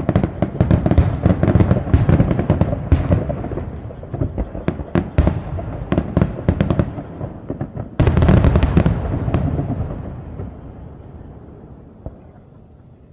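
Fireworks display: many shells bursting in rapid cracks and booms, with a sudden loud volley about eight seconds in, after which the bangs die away into a fading rumble.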